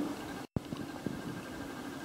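Muffled underwater noise heard through a camera's waterproof housing: a low water rumble with scattered small clicks and knocks. The sound drops out completely for a moment about half a second in.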